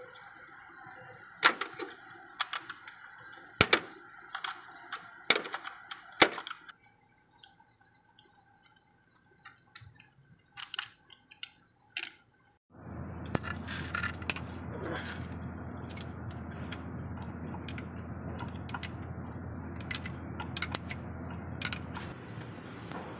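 Hand tools clinking and knocking against metal bolts and brackets while a starter motor is being unbolted: sharp, irregular clicks with pauses between them. About halfway through, a steady low hum comes in under the clicks.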